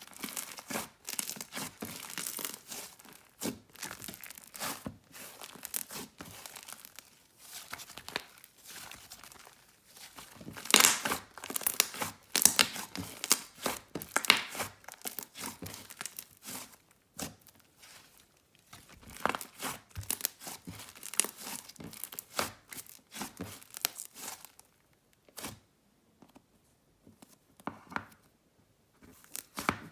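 Hands stretching, folding and squishing a soft, inflated orange clay slime, giving irregular crackling sizzles and small air-bubble pops, which thin out to a few faint clicks near the end.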